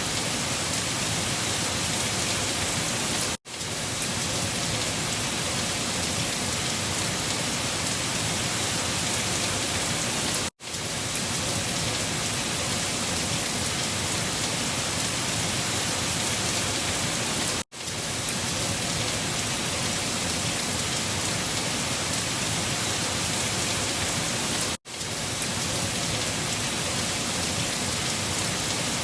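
Steady rain. It drops out for a split second four times, about every seven seconds, and comes straight back each time, as a looped rain recording does.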